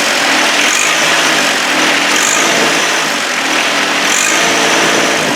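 John Deere 1025R compact tractor's three-cylinder diesel running steadily at PTO operating speed, driving the snowblower through the PTO.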